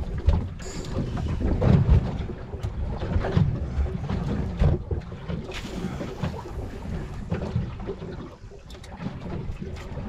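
Wind buffeting the microphone aboard a boat at sea: a low, uneven rumble with scattered knocks.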